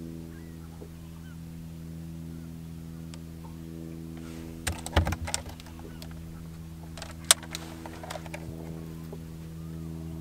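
Knocks and rattles of a bass being handled and clipped onto a handheld lip-grip fish scale, in a cluster about halfway through with one sharp knock about seven seconds in. A steady low mechanical hum from the boat runs underneath.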